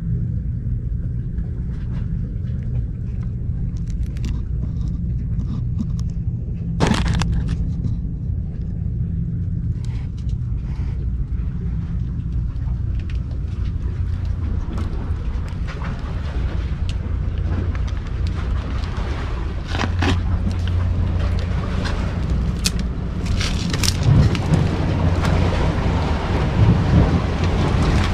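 A steady low rumble with a sharp knock about seven seconds in and scattered clicks and rustles, growing louder and hissier in the second half.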